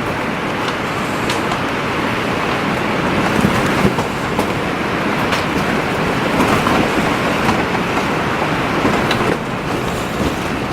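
Strong storm wind buffeting a yurt: a loud, continuous rushing noise that swells and eases slightly, with a few sharp knocks from the structure.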